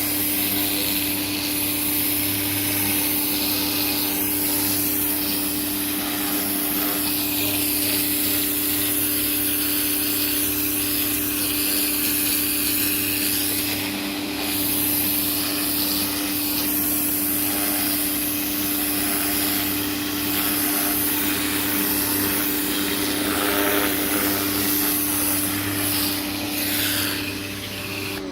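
Greenworks 1600 psi electric pressure washer running steadily: a motor-and-pump hum under the loud hiss of the turbo nozzle's spray on siding. It cuts off near the end.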